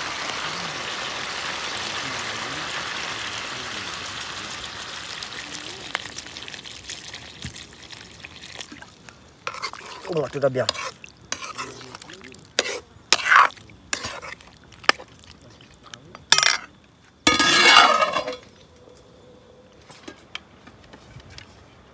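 Chicken sizzling in a wok, a steady hiss that slowly dies down. Then a ladle knocks and scrapes against the wok several times as the pot is stirred, with a louder rush of about a second near the end.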